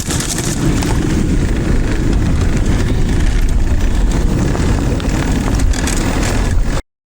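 Steady rushing noise of a recumbent trike being ridden along a trail: wind on the microphone and tyre noise. It cuts off suddenly near the end.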